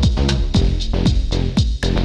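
Electronic dance music with a steady beat and bass line.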